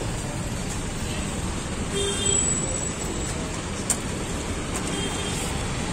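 Steady street traffic noise, with a brief high tone about two seconds in and a single sharp click near four seconds.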